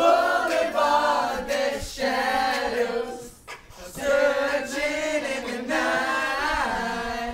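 A group of teenage boys singing together in long held notes, with two short pauses between phrases.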